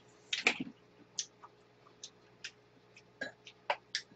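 Quiet eating sounds: about a dozen light, irregular clicks and ticks of chopsticks and tongs against ceramic bowls, mixed with small mouth noises.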